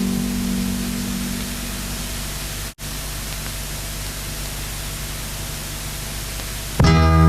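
Steady hiss with a faint low hum in the gap between two songs. It breaks off for an instant about three seconds in, and guitar music starts again near the end.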